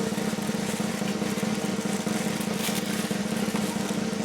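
A drum roll: a steady, buzzing run of very fast strokes, as an edited-in suspense effect ahead of a reveal.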